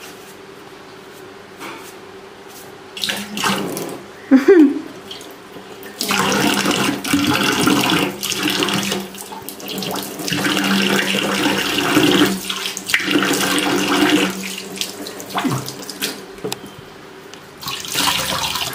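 Kitchen tap running into a stainless steel sink, starting about six seconds in. The water splashes as a cloth is rinsed under the stream, and later pours into a pot of water standing in the sink. A brief loud sound comes shortly before the water starts.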